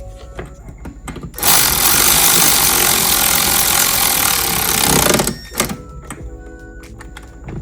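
A power tool runs in one loud burst of about four seconds, starting about a second and a half in, likely driving a fastener during the shifter install.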